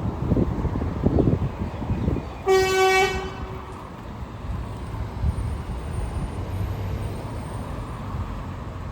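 A car horn sounds once, a short single-pitch toot of about half a second, about two and a half seconds in, over low street-traffic rumble.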